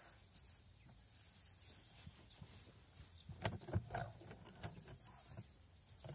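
Quick run of wooden knocks and clatter about three and a half seconds in, as the lever arm and pressing lid of a homemade chipboard hay press are swung up, with a few lighter knocks after. Before that, the soft rustle of hay being pushed into the box.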